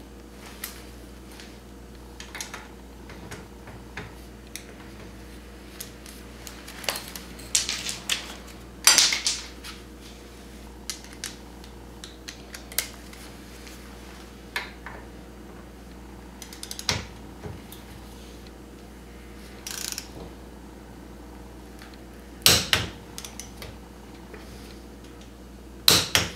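Hand tools being worked on the front suspension's ball-joint bolt: scattered clicks and light metallic clinks of a wrench, with a few louder metal clanks, about nine seconds in and twice near the end.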